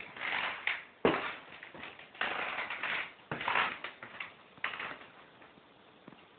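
Irregular bursts of rustling and scuffing, with a short knock about a second in: handling noise of a phone camera being carried around a small room.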